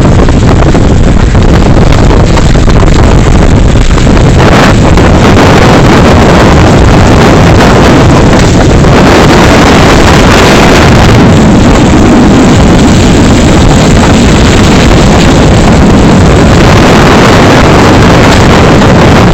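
Vehicle driving along an unpaved road: steady, very loud engine, tyre and wind noise, with wind buffeting the microphone.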